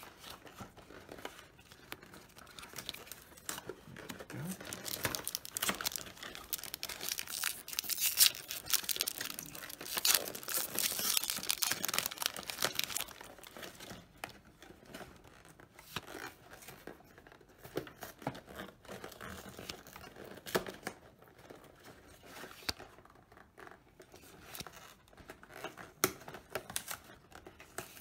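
Foil Yu-Gi-Oh booster pack wrappers being torn open and crinkled, loudest for several seconds in the middle, with trading cards rustling and flicking as they are sorted through by hand.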